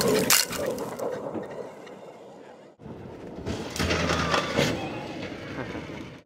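Electric off-road race car with twin 9-inch DC motors, nearly silent itself, driving hard over desert dirt: tyres crunching and spraying gravel, with cracks and rattles from the chassis and suspension. It comes in two passes split by a sudden cut about three seconds in. The loudest part is at the start, and the second pass, as the car jumps, brings a low rumble.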